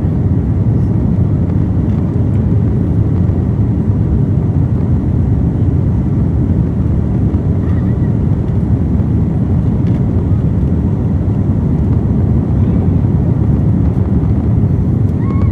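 Cabin noise of an Airbus A330-200 from a window seat over the wing as the airliner rolls along the ground: a steady, deep rumble of engines and wheels.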